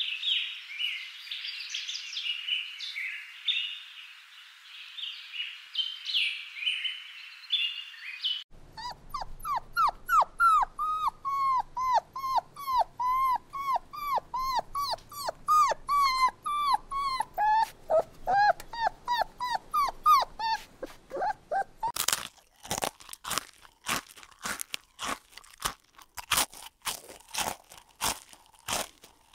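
Small songbirds chirping and twittering for the first eight seconds or so. Then puppies whimpering, a run of short high whines that rise and fall, about two a second. For the last seven seconds, a hamster crunching on raw carrot in a string of sharp crunches.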